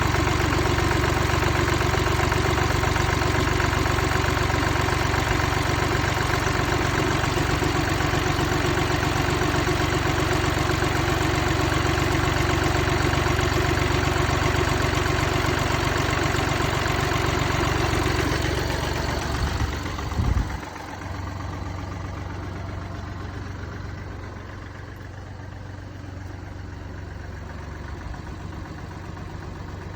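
Mini Cooper D three-cylinder diesel engine running with a knocking, the sign of a worn, broken dual mass flywheel. About two-thirds of the way in there is a brief thump and the sound drops to a quieter, steady level.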